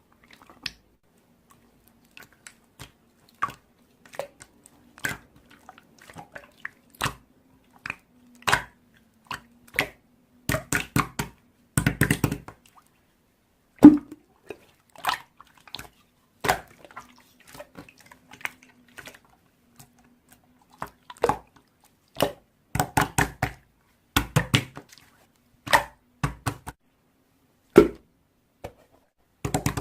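Slime being squeezed and poked by hand, giving irregular wet clicks and pops, some coming in quick clusters.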